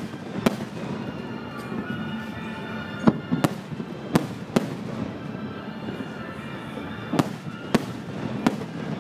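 Aerial firework shells bursting in a display: about eight sharp bangs at uneven spacing, over a steady din from the rest of the show.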